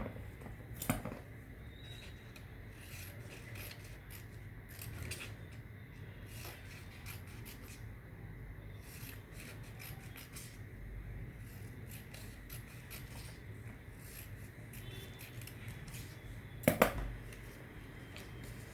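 Scissors snipping paper, with paper rubbing and rustling in between: many short crisp snips and scrapes, a sharper click about a second in and a louder one near the end.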